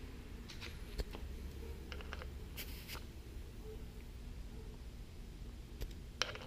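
A nut driver turning the worm screw of a hose clamp on a turbo-kit coupler, being tightened during a boost leak check: a few scattered scratches and small clicks over a low steady hum, with a short scraping hiss about two and a half seconds in.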